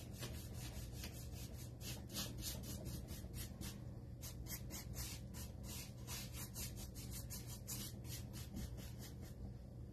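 Paintbrush scrubbing chalk-style paint onto a wooden bookshelf: a quick rhythmic swishing, about three or four strokes a second, with a short pause about four seconds in. A steady low hum runs underneath.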